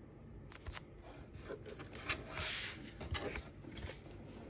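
Quiet handling noises: a few light clicks and knocks, with a short rustle a little past two seconds in.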